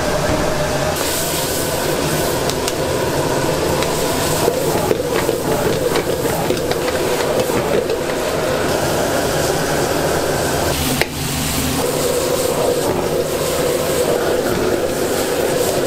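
Stir-frying in a wok over a high-heat gas burner: chopped cabbage and onion sizzling under a steady burner roar, with a metal ladle scraping and knocking against the wok now and then.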